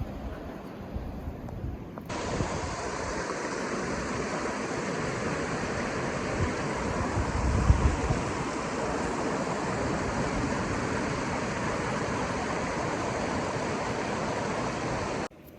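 Rushing stream water, a steady, even hiss that starts abruptly about two seconds in and cuts off suddenly near the end. Before it come low gusts of wind buffeting the microphone.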